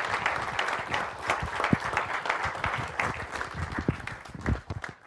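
Audience applauding with dense clapping, which thins out and dies away in the last second or so.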